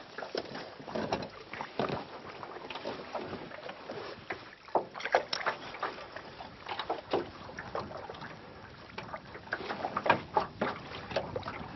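Water lapping and slapping against the hull of a small aluminium boat, with irregular light knocks and splashes.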